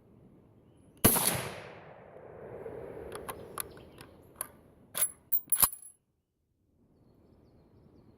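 A single shot from a Ruger Mini-14 firing a light .223 Remington cast-bullet load, its report echoing and fading out over about a second and a half. It is followed by a run of sharp metallic clicks and clinks as the action is worked by hand, because the load fires but fails to cycle the rifle.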